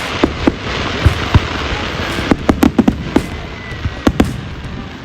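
Fireworks going off: a string of sharp bangs and pops, with a quick cluster of them in the middle, over a steady hiss.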